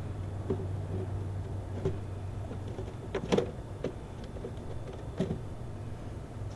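Air filter element being fitted into a PT Cruiser's plastic air box: a handful of light plastic knocks and rustles, the loudest about three seconds in, over a steady low hum.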